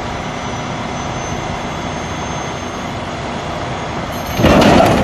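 Steady noise of heavy trucks running, with a faint high whine over it. A little over four seconds in, a sudden much louder burst of clattering noise cuts in.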